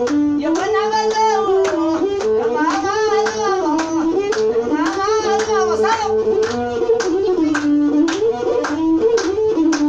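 Ethiopian azmari masinko music: a single wavering melody line with bent, held notes over steady hand claps.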